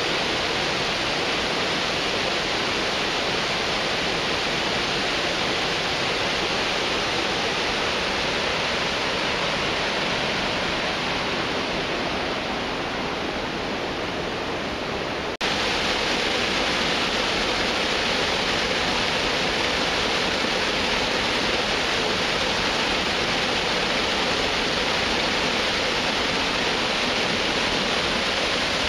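Water pouring over a man-made dam spillway in several falling streams, a steady rushing splash. It softens for a few seconds and then comes back suddenly at full strength about halfway through.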